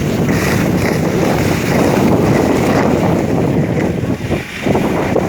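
Wind rushing and buffeting over the microphone of a skier going downhill, mixed with the scrape of skis on snow.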